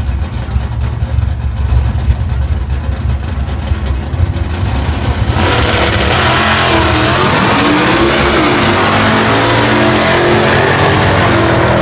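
Two classic drag-race cars, a 1950s sedan and a 1950s pickup, sit at the starting line with engines rumbling unevenly. About five seconds in, both launch at full throttle, and the engine noise jumps to a loud, steady howl that climbs in pitch as they pull away down the strip.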